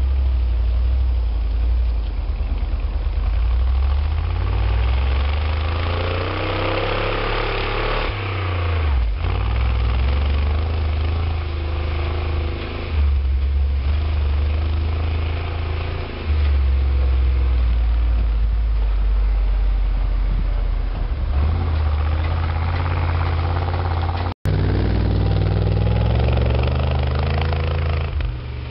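1966 International Harvester truck's engine running hard and revving up and down as it drives through snow on chained tyres. The sound drops out for an instant near the end.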